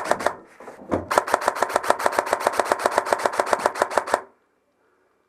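Airsoft gun firing on full auto, a rapid even rattle of about ten shots a second. A burst ends just after the start, and a second, longer burst runs from about a second in until the sound cuts out suddenly a little past four seconds.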